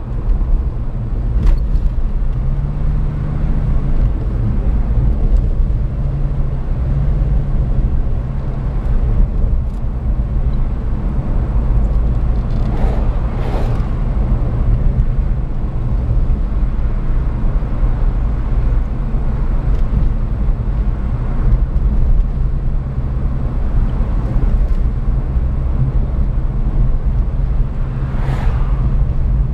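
Steady low rumble of a car's engine and tyres on the road, heard from inside the cabin while driving, with two brief louder swells, one about halfway through and one near the end.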